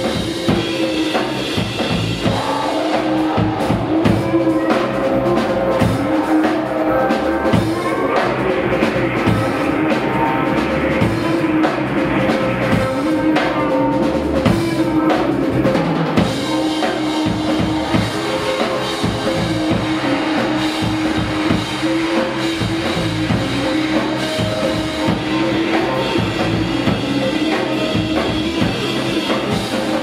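Live rock band playing an improvised instrumental passage: drum kit with bass drum and snare under electric guitars, with a held note coming back every couple of seconds.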